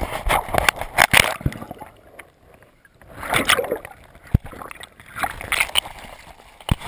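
Muddy stream water splashing and sloshing in irregular bursts as a person wades and ducks under a log, with a few sharp knocks against the body-mounted camera.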